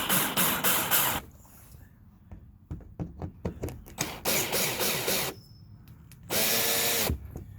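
Worx 20-volt cordless drill running in three bursts. The first pulses about five times a second, with clicks and knocks between the bursts. The last burst winds down in pitch as the motor stops.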